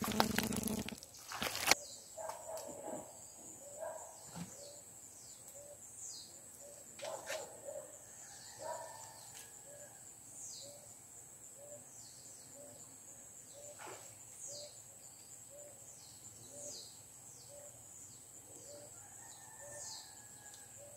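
Wild birds calling at a riverside: short, high, falling notes about once a second, with a soft low chirp repeating and a steady high whine behind them. Handling knocks come in the first two seconds.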